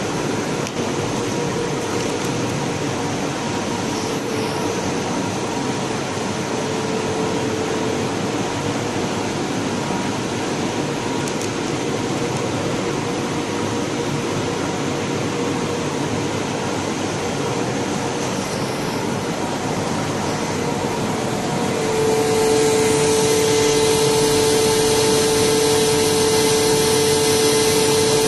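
Vacuum pump running steadily, drawing air out of glass-lamination bags through hoses. About three-quarters of the way in, a louder hum with a hiss joins in and holds.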